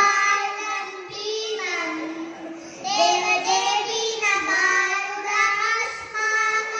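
Young children's voices singing a tune in short phrases, with gliding, high-pitched notes.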